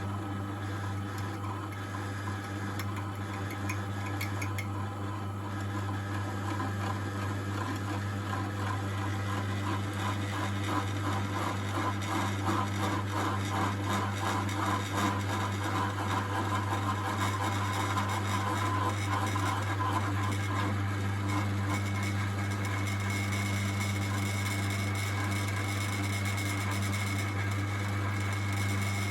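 Drill's mains electric motor running steadily while a drill bit bores into a metal part of a hand mower. The bit chatters rhythmically through the middle, and a higher whine joins near the end.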